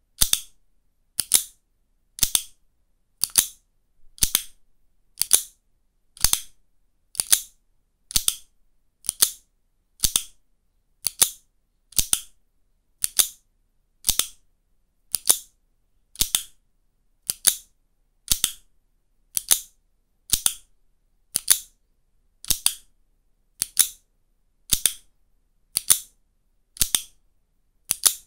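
Plastic Jedo Plus mechanical-pencil lead case being pressed, its slider clicking sharply about once a second in a steady, even rhythm.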